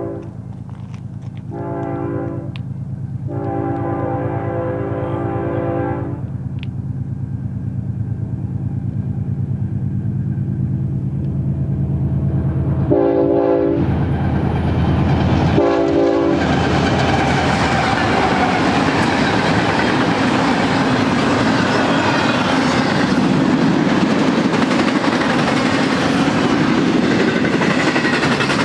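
Approaching BNSF double-stack intermodal train with GE diesel locomotives running under a steady engine drone. The lead locomotive's air horn sounds the tail of one blast, a short blast, a long blast of about three seconds, then two short blasts about 13 and 16 seconds in. After that the locomotives pass and the loaded well cars roll by, a loud steady rumble and clatter of wheels on rail.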